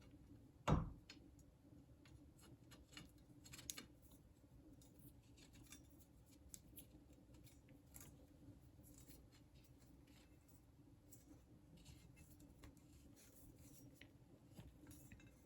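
Faint scattered clicks and scrapes of J-pole antenna sections being screwed together by hand, with one louder knock about a second in.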